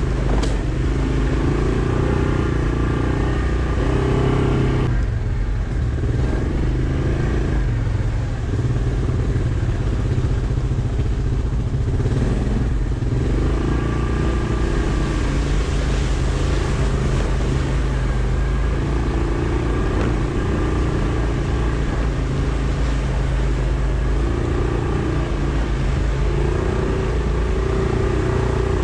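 Yamaha Kodiak ATV's single-cylinder engine running steadily under way, carrying the quad through mud and standing water, with a brief easing off about five seconds in.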